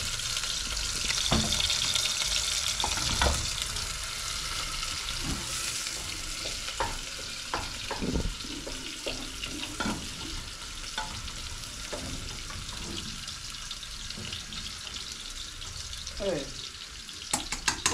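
Chopped onions sizzling as they fry in an aluminium pot on a gas stove, with scattered short knocks of a cooking spoon stirring in the pot.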